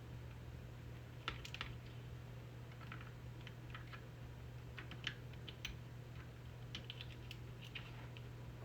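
Scattered light clicks and taps, some single and some in quick little clusters, from hands working on small parts, over a steady low hum.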